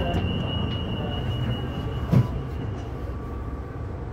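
Steady low running rumble of a CT251 metro train moving slowly through a tunnel, with a thin high tone that stops a little under three seconds in. A single sharp thump about two seconds in is the loudest sound.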